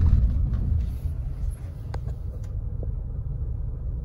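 Car driving along a winding road, heard from inside the cabin: a steady low rumble of engine and tyres, a little louder for the first second or so, then settling.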